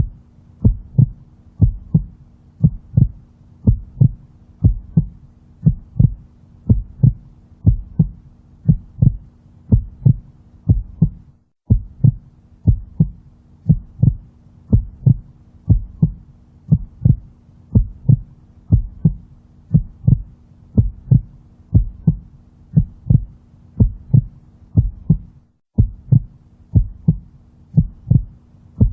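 Heartbeat sound: a steady lub-dub of paired low thumps, about one beat a second, over a faint steady hum. It cuts out for an instant twice.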